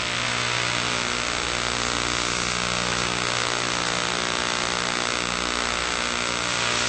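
Steady low electrical hum with a layer of even hiss, unchanging throughout.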